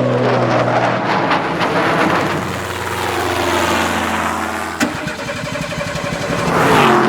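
An engine running with a steady low hum, cut off by a sharp click about five seconds in, followed by a swelling rush of noise near the end.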